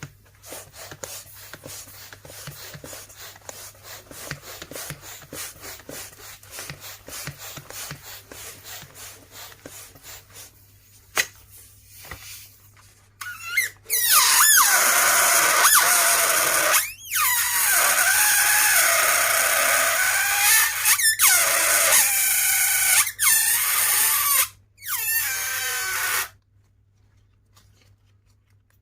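Rubber balloon work: about thirteen seconds of fast, faint, even puffing strokes, then a loud squeal that wavers and bends in pitch for about twelve seconds, broken by a few short gaps and cutting off suddenly.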